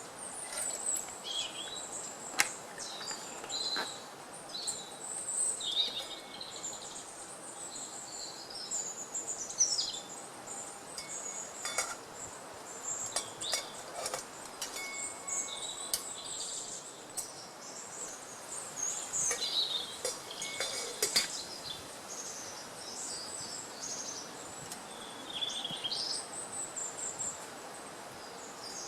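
Woodland birds singing and chirping throughout, with scattered sharp clicks and knocks.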